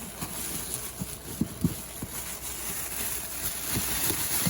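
Rustling and handling of box packing while parts are lifted out, with a handful of soft low knocks about a second in and again near the end.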